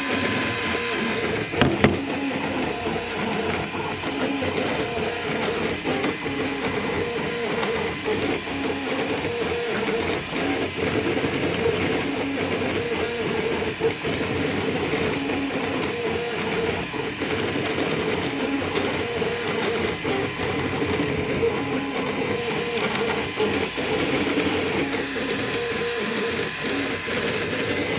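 Small desktop 3D printer running a print: its stepper motors whir in wavering tones that shift in pitch as the print head moves. There is one sharp click about two seconds in.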